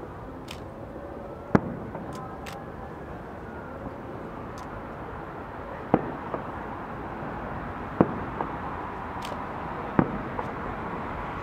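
Fireworks display: aerial shells bursting with four sharp bangs, the last three about two seconds apart, and a few smaller cracks between them, over a steady background rumble.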